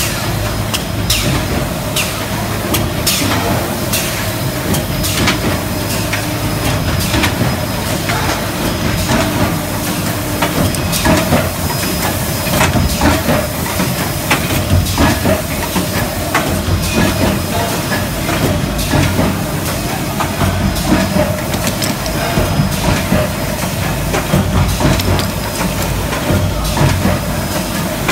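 Aluminium hot-forging machine and its parts conveyor running: a loud, continuous mechanical hum and hiss, broken by frequent irregular sharp metallic clanks and clatter of forged parts.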